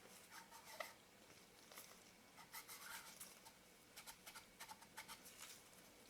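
Faint, irregular small clicks and scratches of metal lens parts and small tools being handled while a Leica Elmarit-M 135 mm lens is put back together.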